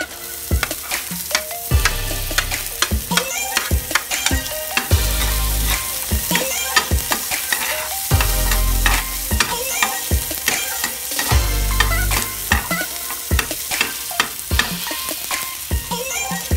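Chopped onion and garlic sizzling in hot oil in a frying pan, with a metal spatula scraping and clicking against the pan as they are stirred.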